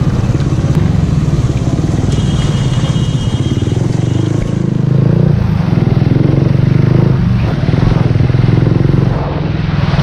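Motorcycle engine running steadily at low road speed, easing off slightly near the end as the bike slows.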